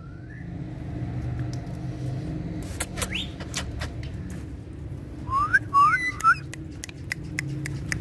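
Ringneck parakeet whistling in short upward-sliding notes: a faint one at the start, one a few seconds in, and then a quick run of four louder ones past the middle. Sharp clicks are scattered throughout, over a low steady rumble.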